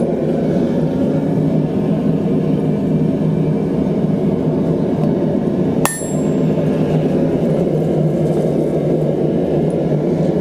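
A single hammer blow on steel about six seconds in, with a short bright metallic ring, over a loud steady low noise that runs throughout.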